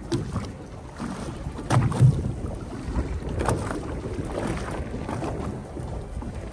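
Wind rumbling on the microphone aboard a small fishing boat at sea, with a few sharp knocks, the loudest about two seconds in.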